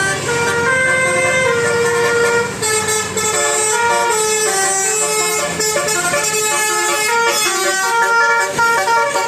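Basuri bus's multi-tone telolet horn playing a tune, its notes stepping up and down and often sounding several at once. The bus's engine runs underneath and fades about six seconds in.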